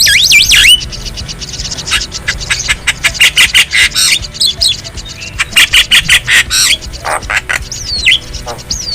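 Javan myna (jalak kebo) calling: runs of harsh, rapid rattling chatter mixed with short whistled notes that glide up and down in pitch.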